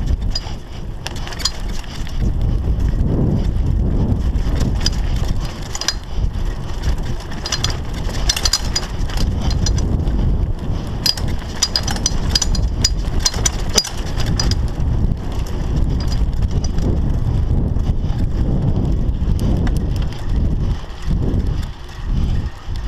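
Wind buffeting the camera microphone and the rumble of a Scott Scale 960 hardtail mountain bike's tyres on a dirt forest trail. Clusters of rattling and clicking from the bike over bumps come in the middle.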